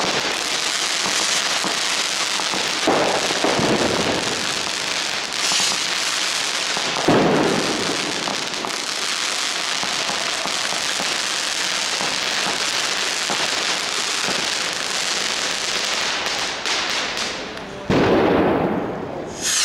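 New Year's fireworks and firecrackers going off in a dense, continuous crackle, with heavier bangs about three seconds in, about seven seconds in and near the end.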